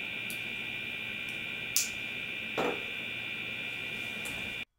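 A few small clicks of a metal ocean snap and jig lure being handled, and a duller knock about two and a half seconds in as the lure is set down on a wooden table, over a steady high whine. The sound cuts off near the end.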